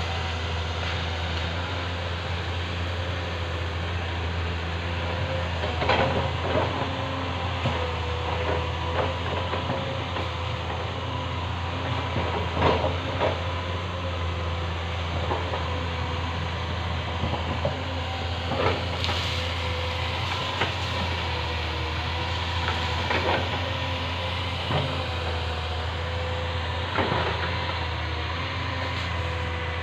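Caterpillar 320D2 excavator digging into a hillside: its diesel engine runs steadily under load with a higher whine over the low drone. Sharp knocks and clanks come every few seconds, the loudest about six seconds in and near the middle.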